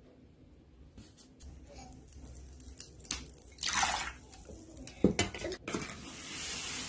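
Warm water poured from a small glass splashing onto a block of ice in a metal baking tray, followed by a few sharp knocks of the glass and a plastic spoon and a soft hiss.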